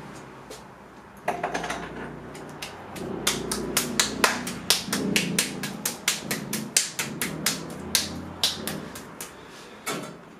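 A lump of white stoneware clay slapped and patted between the hands into a ball: a quick run of sharp slaps, about three or four a second, from about three seconds in, with duller thuds under them.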